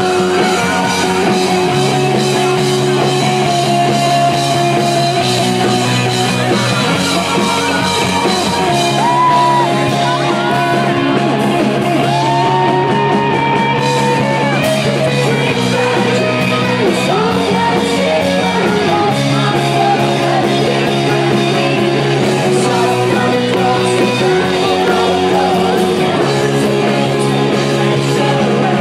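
Live rock band playing loud, with a woman singing lead into a microphone over bass, guitar and drums.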